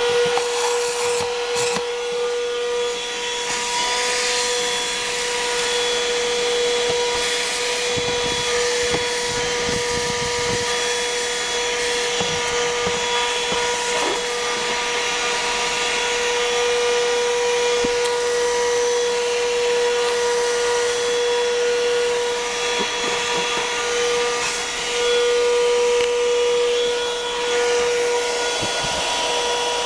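Worx 12V handheld car vacuum running steadily, its small motor giving a constant high whine over a rushing airflow hiss, with a few brief knocks and rattles as debris is drawn in.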